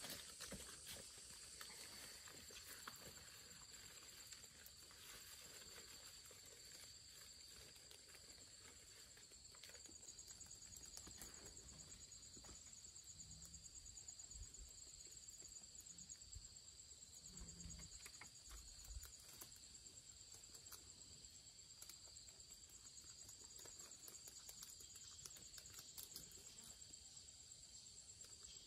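Faint, steady high-pitched chorus of insects, with scattered light clicks and taps over it.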